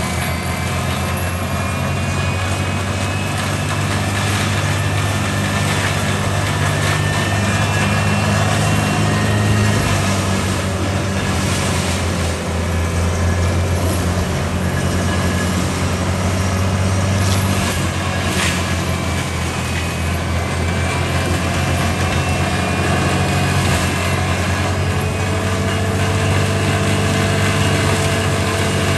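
Cat 299D compact track loader running hard, its diesel engine droning under load while the forestry mulcher drum spins with a steady high whine. There are a few sharp cracks partway through, as the drum breaks up wood.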